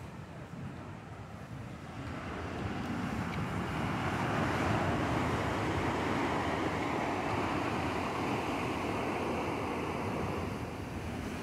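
Ocean surf and wind, a steady rushing noise that grows louder about two seconds in.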